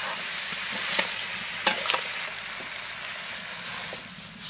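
Spiced pieces of goat meat sizzling as they fry in a steel kadai, with a spatula scraping and knocking against the pan a few times as they are stirred.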